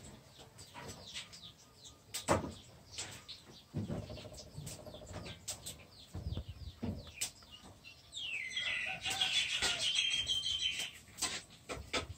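Scattered small clicks and crackles of a young langur handling and eating a longan fruit. From about eight to eleven seconds in comes a louder run of high, quick chirping calls.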